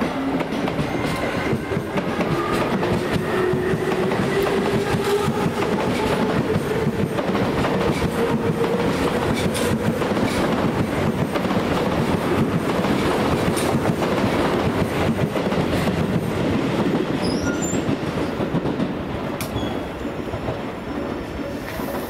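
An electric commuter train running past on the line, its wheels clattering over rail joints. A motor whine rises in pitch over the first several seconds and then holds steady.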